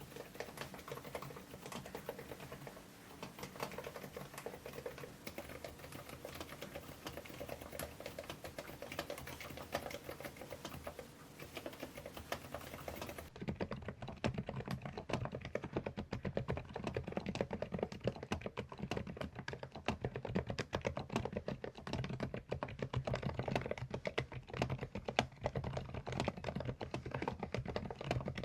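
Rapid typing on a Preflow AK74 PRO full-size mechanical keyboard, a dense stream of key clacks. About halfway through, the sound changes abruptly to a deeper, fuller and louder clack with the highs cut off.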